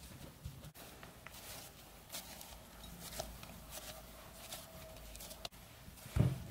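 Hands kneading and patting soft shortcrust pastry dough in a ceramic bowl: soft, irregular dull pats and squishes, with one louder thump near the end as the dough is pressed down into the bowl.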